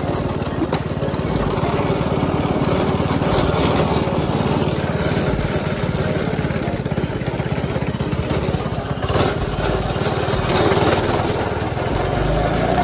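Small single-cylinder engine of a Coleman RTK100 go-kart, its speed governor removed, running steadily while the kart is driven.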